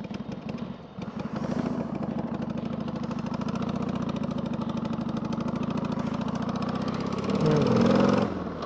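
Harley-Davidson Sportster's V-twin engine running steadily, with the revs rising and falling briefly near the end.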